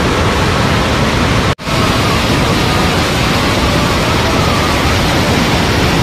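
Loud, steady rush of a waterfall in heavy flow. The sound cuts out for an instant about one and a half seconds in, then carries on unchanged.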